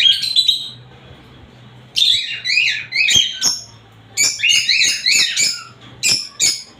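Rosy-faced lovebirds calling in quick bouts of shrill, repeated chirps, three or four bouts broken by short pauses.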